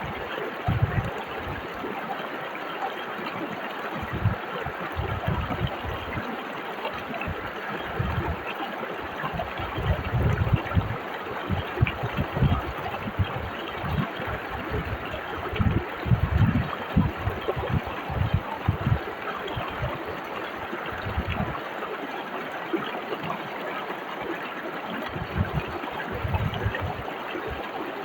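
Whitewater river rushing steadily, with irregular low rumbles that come and go and make the loudest moments.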